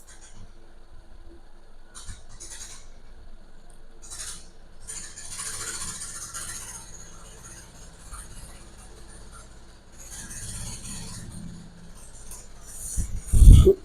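Faint scratching and rustling noises come and go, then a single loud low thump near the end.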